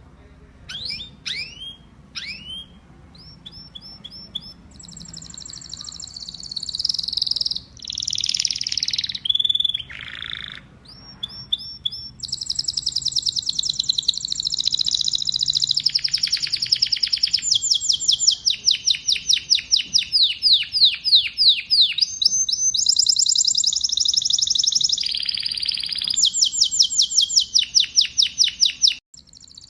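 Canary singing: a few short chirps that sweep downward, then a long song of rapid trills, each a fast run of repeated notes. The song grows louder about twelve seconds in and breaks off briefly near the end.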